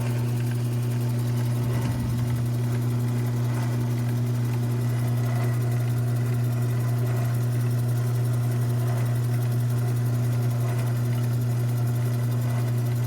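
Modified mini lathe's quarter-horsepower motor running steadily with a strong, even hum while it drills a hole.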